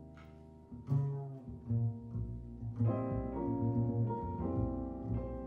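Jazz grand piano and double bass playing slowly. A held chord dies away, new piano notes enter about a second in, and the playing grows fuller and louder about halfway through, with the bass sustaining low notes underneath.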